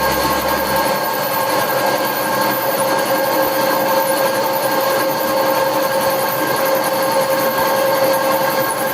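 Milling machine running steadily: a constant mechanical whine made of several steady tones over a dense machine noise, with no change in speed.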